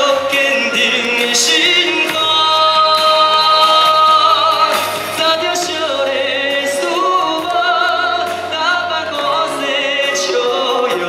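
Male singer singing live with band accompaniment, holding one long note a couple of seconds in.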